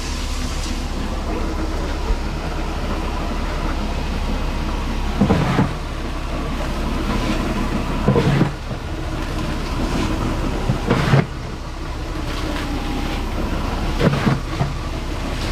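Steady low mechanical hum of barn machinery, with a short scoop-and-scatter sound about every three seconds as grain is scooped out onto the cows' feed.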